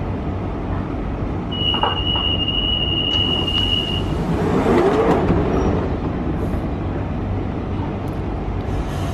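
London Underground 1992 stock train at the platform: a steady high door-warning tone sounds for about two and a half seconds, then the doors close and the train starts to pull away, its motors rising in pitch about five seconds in, over a steady low rumble.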